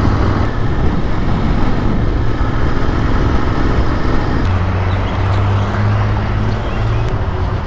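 Royal Enfield Interceptor 650's parallel-twin engine running on the move under heavy wind rush. About four and a half seconds in, the wind noise drops and a steady engine note comes forward, as the bike slows.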